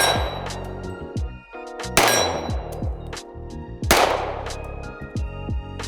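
Three shots from an unsuppressed FN FNX-45 Tactical .45 ACP pistol, about two seconds apart, each ringing out and decaying, over steady background music.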